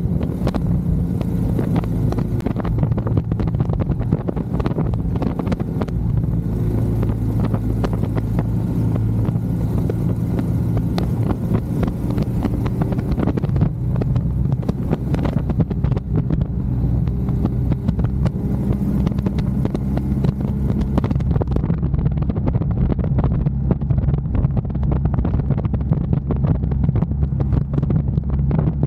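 Royal Enfield Scram 411 single-cylinder motorcycle engine running at road speed, its pitch shifting a few times with throttle and gear changes, with wind buffeting the microphone.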